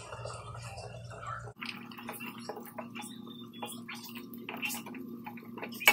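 Wooden spoon stirring thick kare-kare peanut sauce in a metal pot: scattered light taps and ticks of the spoon against the pot, starting about a second and a half in.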